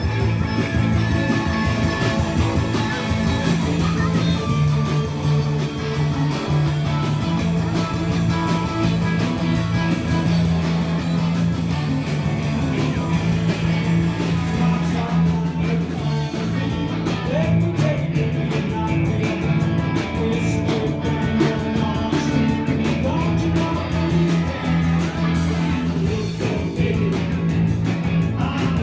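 A live band playing through PA speakers, with guitar, a steady bass line and singing.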